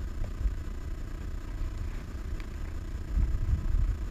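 Wind buffeting the microphone: a low, uneven rumble that swells louder about three seconds in.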